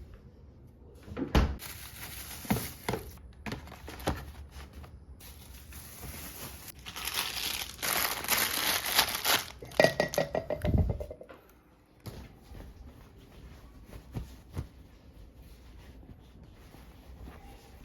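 Plastic packaging crinkling and rustling as it is handled, with a few knocks of objects set down. The crinkling is loudest and densest for several seconds in the middle, then dies down to light handling.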